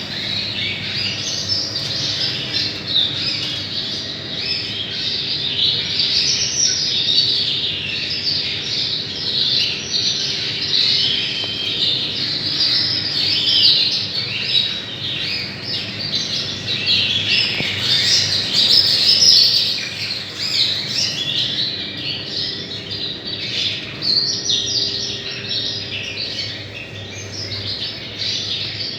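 Many Yorkshire and Crest canaries chirping and singing at once: a dense, continuous chatter of quick high calls and warbles.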